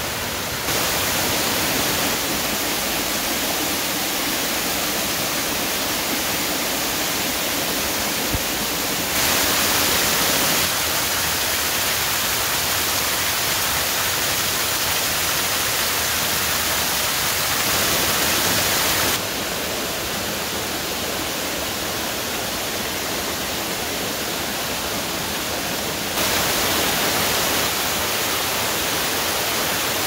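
Small mountain waterfall and cascades pouring over rock: a steady, full rushing hiss of falling water. Its loudness and brightness jump up or down abruptly every several seconds.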